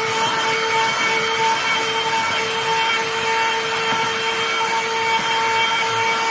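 Portable vacuum cleaner running steadily: a high motor whine over a rush of air as it vacuums a car's floor.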